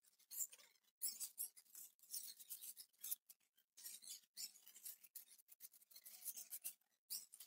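Putty knife scraping crack seal paste along a crack in a plaster wall, pressing it in: a run of faint, short, hissing scrapes with brief pauses between strokes.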